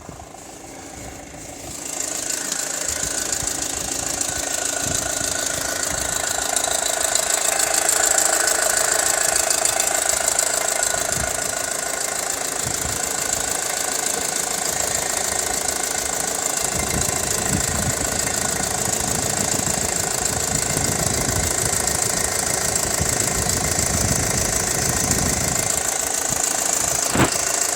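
Audi 2.0 TFSI four-cylinder turbo petrol engine idling warm with a loud, steady mechanical noise and a high-pitched hiss over it, getting louder about two seconds in. The noise went away once the timing chain, timing belt and their tensioners were replaced, which marks it as the sign of worn timing-drive tensioners.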